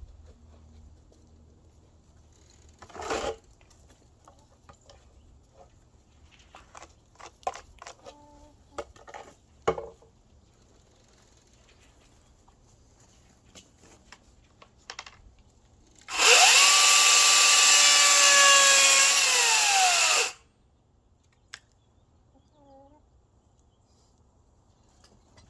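Harbor Freight Atlas 18-inch battery chainsaw running for about four seconds with a steady electric-motor whine, then winding down when the trigger is let go; its chain is mounted backwards. Before it, scattered clicks and knocks of the saw being handled.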